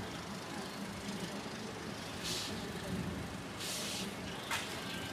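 A generator's steady low hum, with short hissing bursts about two and three and a half seconds in and a sharp clack about four and a half seconds in, from a tent being dismantled.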